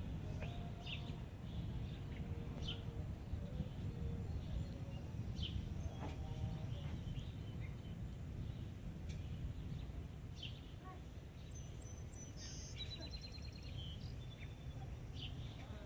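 Outdoor ambience before a thunderstorm: songbirds give short high chirps every second or two, with a quick trilled run of notes about three-quarters of the way through, over a steady low rumble.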